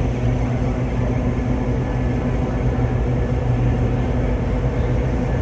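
Amtrak diesel locomotive idling, a steady low hum that holds an even pitch.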